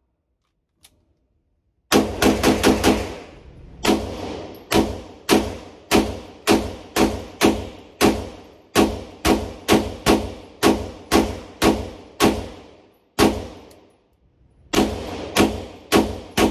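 Semi-automatic pistol with a muzzle compensator firing on an indoor range, each shot sharp and echoing. About two seconds in comes a fast burst of about five shots, then a steady string at about two shots a second, a short pause, and a quicker string near the end.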